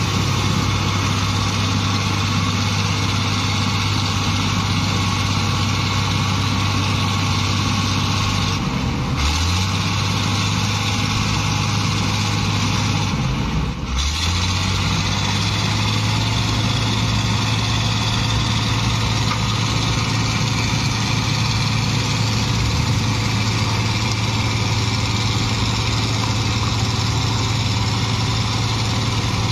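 Diesel engine propelling a small vehicle-ferry pontoon, running steadily with a low hum, over water churned by its propeller. The engine note shifts briefly twice, about nine and fourteen seconds in.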